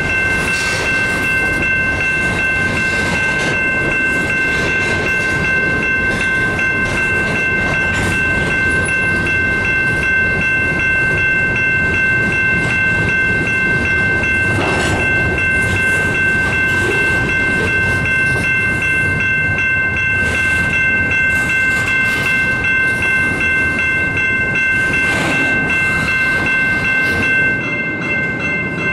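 Freight train of covered hopper cars and double-stack container cars rolling past at close range: steady rumble and clatter of steel wheels on rail, with a steady high-pitched squeal held throughout. Near the end the sound drops a little and turns into a more rhythmic clacking of wheels over the rails.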